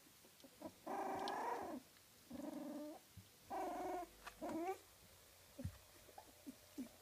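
A young kooikerhondje puppy whining in four drawn-out cries, the first about a second long and the last wavering up in pitch. After them come a few faint ticks and scuffles.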